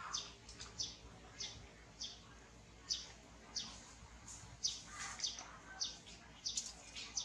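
Short, high-pitched animal chirps, each falling in pitch, repeating irregularly about twice a second over a faint background hiss.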